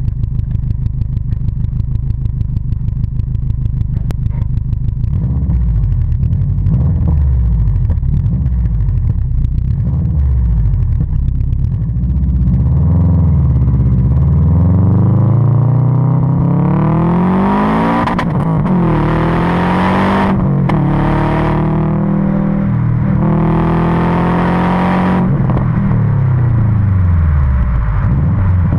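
Turbocharged Subaru WRX flat-four (EJ257 short block, EJ205 heads, VF39 turbo) heard at the tailpipe of its 3-inch turbo-back exhaust with Magnaflow muffler. It runs steadily at first, then the car pulls away and accelerates through several gears: the note rises in pitch and drops back at each shift. A rushing hiss comes in over the hardest pulls.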